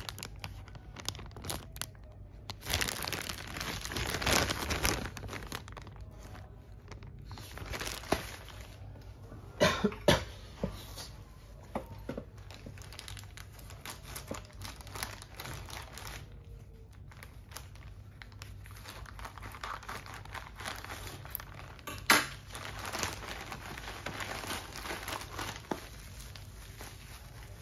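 Plastic courier mailer bag crinkling as it is handled and torn open by hand, then bubble wrap rustling as the packed item is pulled out and turned over. Irregular crackling throughout, with sharp loud crackles about ten seconds in and again about 22 seconds in.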